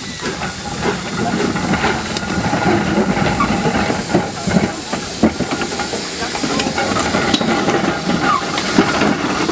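Steam saddle-tank locomotive Slough Estates No. 3 passing close by under steam, its steam hissing loudly, with scattered clanks and knocks. The sound grows louder over the first couple of seconds as the engine draws near.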